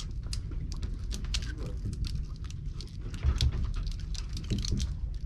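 Light rain pattering on the boat in many irregular sharp ticks, over a steady low rumble.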